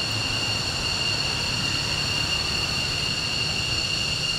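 Jet aircraft engines running: a steady high whine of several tones over a continuous rushing noise and low rumble.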